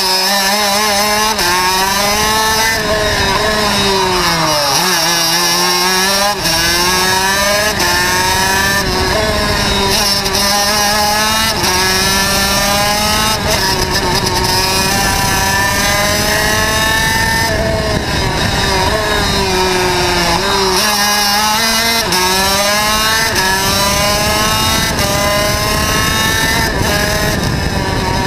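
TM two-stroke racing kart engine at full throttle, heard onboard. The revs climb steadily along the straights and drop sharply as it slows for corners, about five seconds in and again about twenty-one seconds in, then climb again.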